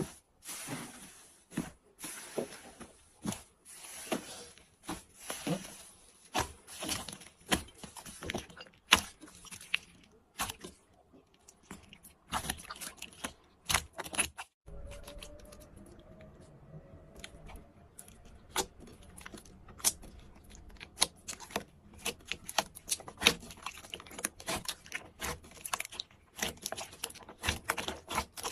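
Slime being squished and stretched by hand, giving a dense, irregular run of small wet clicks, pops and crackles, with a brief pause about halfway through.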